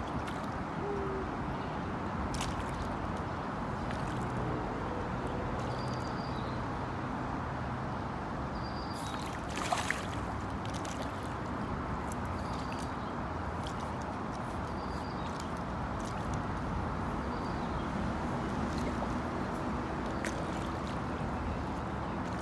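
Steady outdoor background noise with faint short bird calls now and then and a sharp click about ten seconds in.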